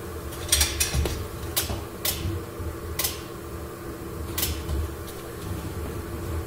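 Car body frame being pulled straight with a chain frame puller: a series of irregular sharp clicks and knocks from the strained metal and pulling gear, most of them in the first few seconds, over a steady hum.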